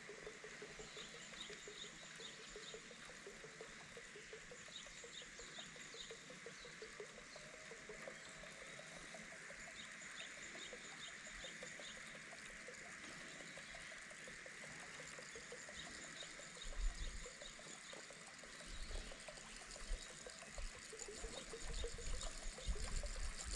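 Faint pondside ambience: birds calling in short, repeated chirping runs over a steady background hiss. In the last several seconds there are soft low thumps.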